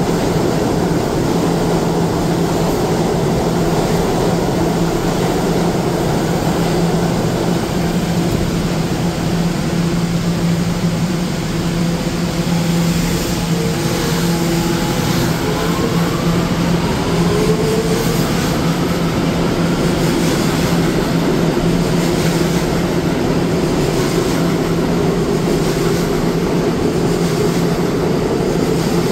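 New York City R211A subway train standing at the platform with a steady low electrical hum, then pulling out. About halfway through, a rising whine climbs as it accelerates, followed by the rumble of the cars running past.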